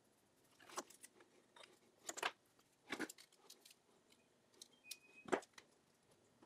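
Light clicks and knocks from handling digital calipers, a marker and wooden handle blocks on a workbench, about four separate ones, the last the loudest. A brief high tone sounds just before that last knock.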